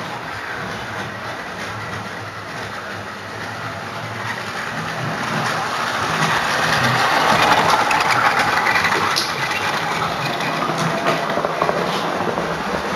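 Model train running on the layout: a steady motor hum with wheel noise on the track, growing louder to a peak about two-thirds of the way through and easing a little after, with a few sharp clicks.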